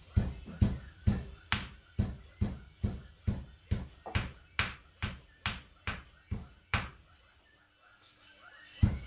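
Pestle pounding cassava shoot leaves in a small mortar: steady thuds a little over twice a second, each with a short bright ring. They stop about seven seconds in and start again with two strokes near the end.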